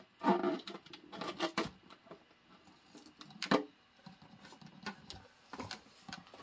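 Hands working the neck of a clear plastic bubble balloon: irregular rubbing and crinkling, with a sharp click about three and a half seconds in.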